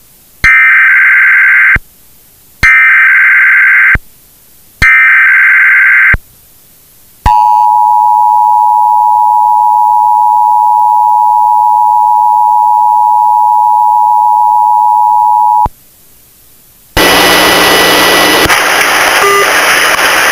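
Emergency Alert System broadcast tones: three screeching SAME header data bursts of about a second and a half each, then the steady two-tone EAS attention signal held for about eight seconds. Near the end, loud static-like noise follows.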